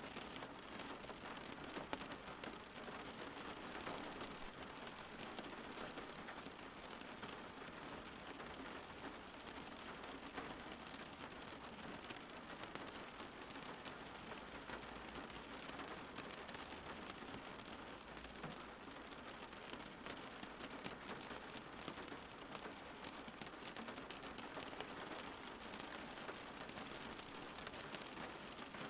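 Steady rain falling and pattering on surfaces, an even hiss of many small drops.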